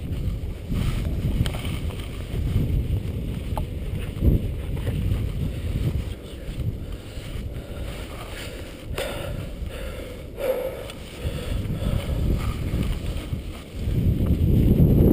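Wind buffeting the camera's microphone: a low, unsteady rumble that rises and falls in gusts and gets louder near the end, with a few faint knocks.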